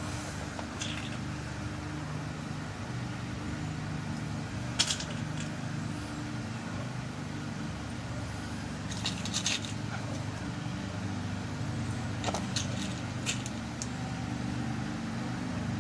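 Small lock pins clicking as they are dropped into a pin-tumbler lock cylinder to load it with a new key code: a few scattered light clicks, a sharper one about five seconds in and a quick cluster a little past halfway, over a steady low hum.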